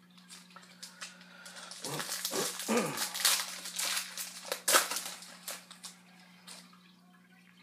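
A dog whining, with short falling-pitched cries about two to three seconds in, over a burst of crackling, rustling noise that lasts a few seconds.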